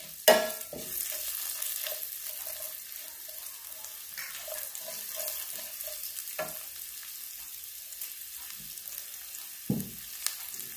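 Spices and chopped green chillies sizzling in hot oil in a frying pan while a slotted steel spatula stirs and scrapes through them. There is a sharp knock of the spatula against the pan just after the start, and a few softer knocks later.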